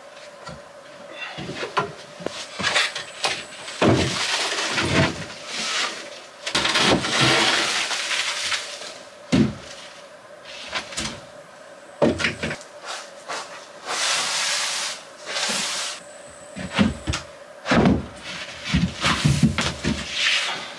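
OSB sheets and wooden frame pieces being handled and fitted into a raised floor frame: scattered knocks of wood on wood, with stretches of scraping and rustling plastic sheeting in between.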